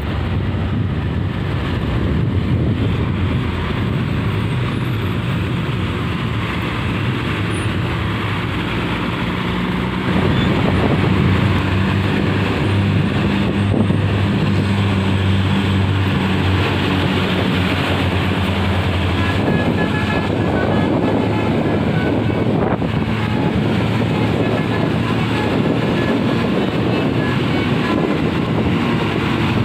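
Vehicle engine and road noise running continuously with a steady low hum, getting louder about a third of the way in.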